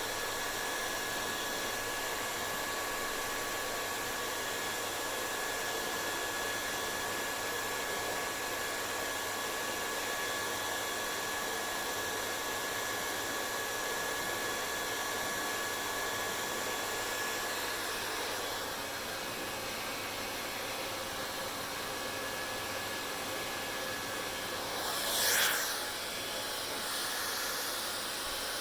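Hair dryer running steadily: an even rushing blow with a faint high whine that fades out a little over halfway through. About 25 seconds in there is one brief, louder swish.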